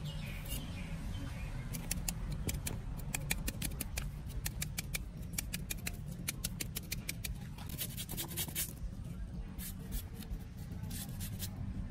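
Kitchen knife slicing a red onion held in the hand, a quick run of short, sharp cutting clicks that thin out about two-thirds of the way through.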